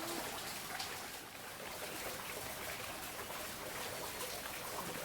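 Steady rush of waterfall water.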